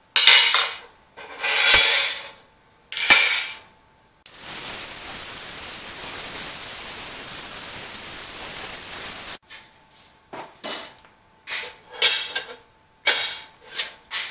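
Three ringing metallic clanks of a steel flywheel ring gear being handled, then a gas torch hissing steadily for about five seconds as it heats the ring gear, cutting off abruptly. A run of sharper metal clinks and knocks follows as the heated ring gear is fitted onto the flywheel, a shrink fit.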